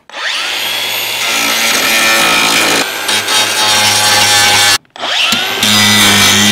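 Cordless angle grinder with a grinding disc spinning up with a rising whine and grinding steel, cleaning the metal for welding. It cuts off suddenly about five seconds in, then spins up again a moment later.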